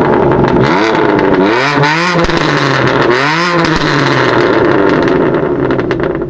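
BMW M3 F80's twin-turbo straight-six through an Akrapovic Evolution race exhaust, revved in three blips with the pitch rising and falling each time, with crackles from the exhaust, then held at a steadier note that fades near the end.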